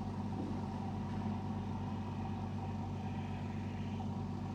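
An engine running steadily, a low, even hum that does not change.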